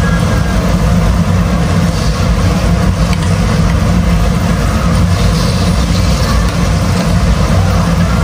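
Battered cempedak deep-frying in a wok of hot oil, sizzling, over a loud steady low hum.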